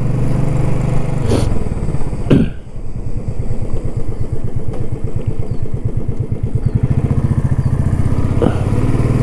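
Royal Enfield Classic 350's single-cylinder engine thumping as the bike rides slowly, with a short sharp sound about two seconds in. The engine note drops off just after that and picks up louder near the end.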